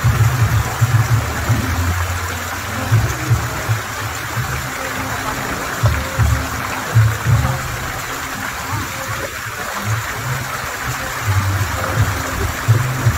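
Water from a rock waterfall pouring steadily into a pool, with music over it whose deep bass notes come and go and are the loudest part.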